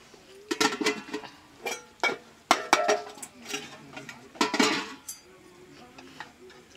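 Stainless steel dishes clinking as food is served: a steel bowl and ladle knocking against a steel pot and plates. There is a run of sharp clinks over the first five seconds, after which it goes quiet.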